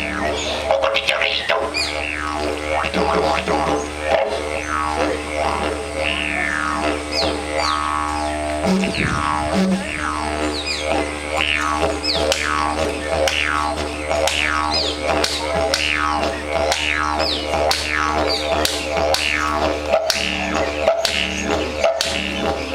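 Didgeridoo played in a steady, unbroken low drone, with quick rhythmic sweeps of overtones riding over it and two short higher toots about nine seconds in.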